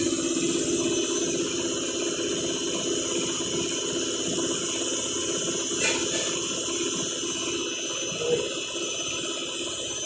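Water flowing steadily into an IFB Senator Aqua SX front-load washing machine through its inlet valve as it fills, with a brief tick about six seconds in.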